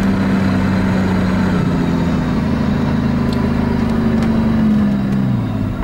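Off-road 4x4's engine heard from inside the cabin while driving over sand, a steady drone whose note steps up a little about a second and a half in and falls away near the end.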